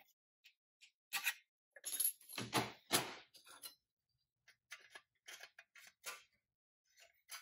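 A pressed-steel toy truck body and its metal grille being handled and fitted: scattered metal clicks and scrapes, with a louder cluster of knocks and scraping about two to three seconds in.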